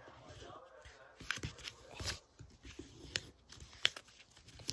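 Paper being folded and creased by hand, giving a few irregular sharp crackles and clicks, the loudest a little before the end.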